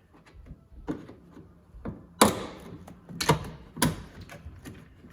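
A plastic interior trim panel in a car being pried off with trim removal tools: a few sharp clicks and knocks as its clips let go, the loudest about two seconds in.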